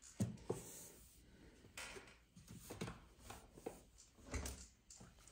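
Faint, scattered rubbing and light taps of a paintbrush working paint, coming at irregular moments.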